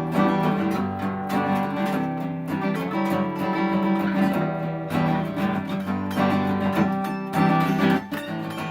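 Guitar strummed in chords, an instrumental passage of the song with no singing.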